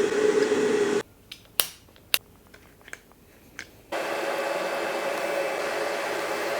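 Stick (MMA) welding arc from an Arccaptain MIG205MP, crackling and hissing steadily; it breaks off about a second in, a few sharp clicks follow, and the arc is struck again about four seconds in.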